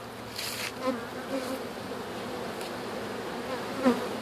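A honeybee swarm buzzing steadily. A few single bees buzz louder close by, each with a short slide in pitch, and the loudest comes near the end.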